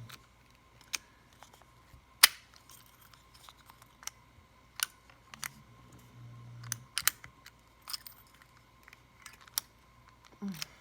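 Small metallic clicks and taps from a padlock and lock-picking tools being handled, with a sharp click about two seconds in and an irregular run of lighter ones after it.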